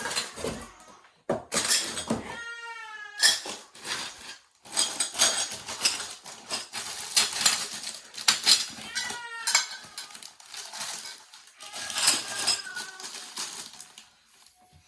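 A cat meowing four times, short falling calls, over repeated clattering and clinking of metal rack parts being handled.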